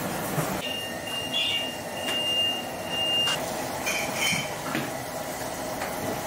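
Busy teahouse background noise with a few short clinks of crockery and a steady high whistling tone lasting about three seconds.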